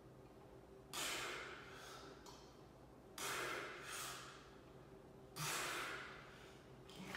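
A weightlifter's sharp, forceful breaths under the effort of seated barbell presses: three strong ones about two seconds apart, with a smaller one between the second and third, each fading quickly.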